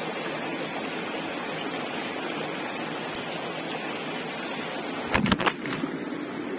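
Steady rushing noise with no pitch, like water or wind outdoors, with a quick cluster of knocks or bumps about five seconds in.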